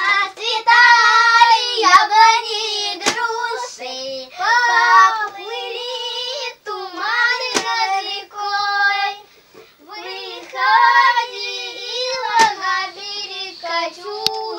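A child singing a wordless or hard-to-make-out tune in long held, high notes, phrase after phrase, with a few sharp clicks in between.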